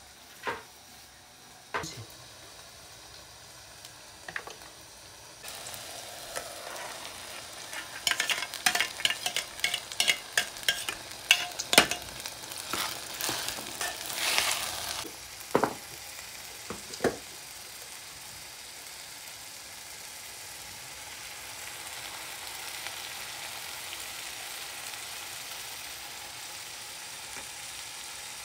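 Grated tomato sizzling in hot oil in a metal pot on a gas-cylinder burner, stirred with a metal ladle. A few knocks come first, then the sizzle starts about five seconds in, with a run of clinks and scrapes of the ladle against the pot in the middle. A steady sizzle follows.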